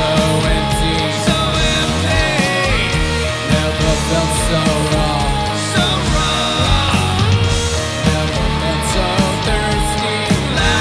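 Rock band playing live in a loud, dense passage with no lyrics sung.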